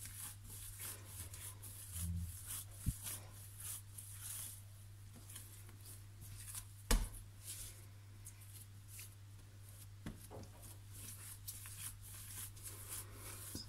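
Hands kneading slack, sticky bread dough on a granite countertop: repeated soft squelching and slapping as the wet dough is stretched and folded, with a sharper knock about seven seconds in. A steady low hum runs underneath.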